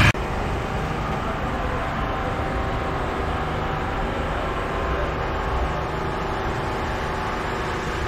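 Steady background din of traffic with a low hum, no single event standing out.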